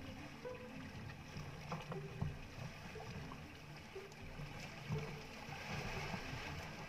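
Sea water lapping against the hull of a small outrigger fishing boat, over a low steady rumble, with a couple of light knocks.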